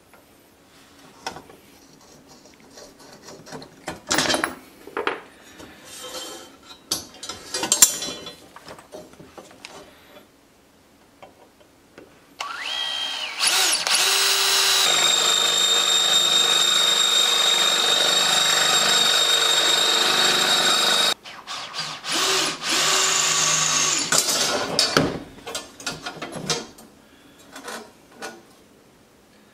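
Cordless drill boring into a flat steel bracket: one steady run with a high whine lasting about eight seconds, then a few shorter bursts. Before it come scattered sharp knocks and scrapes as the steel bar is handled and marked on a wooden bench.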